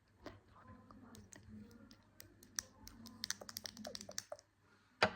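Close-up ASMR tapping and clicking: scattered light clicks, then a quick run of sharp clicks about three seconds in, and one louder click near the end.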